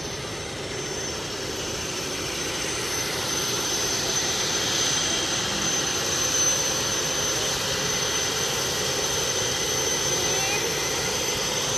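Aircraft engine drone: a steady rushing noise with a thin high whine. It grows louder over the first few seconds, then holds steady.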